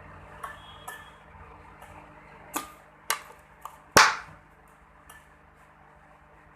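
Sharp clicks and taps of small jeweller's tools being handled and set down: a few light clicks, then several louder taps, the loudest about four seconds in, over a steady low hum.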